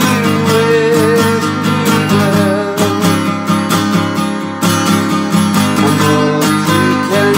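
Steel-string acoustic guitar strummed steadily, chords ringing on without a break.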